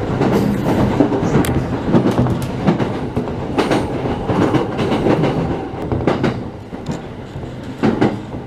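Electric commuter train running past the platform, wheels clacking over rail joints with a steady rumble that eases slightly near the end as the train slows on arrival.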